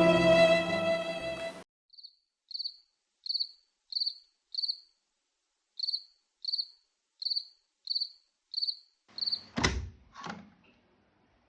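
Violin music cuts off about a second and a half in. A cricket then chirps at an even pace, about one short high chirp every two-thirds of a second, over otherwise dead silence. Near the end come two thumps a little over half a second apart, the first one loud.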